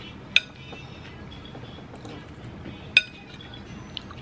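A metal spoon clinks twice against a ceramic bowl of noodle soup, once about half a second in and again near the end.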